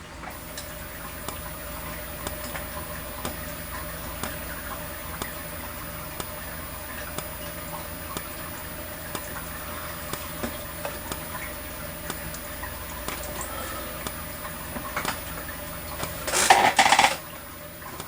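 Potter SH-1224 fire alarm strobe flashing about once a second, each flash a faint click, over a steady high-pitched whine, which the owner puts down to the strobe's capacitor. A brief loud clatter comes near the end.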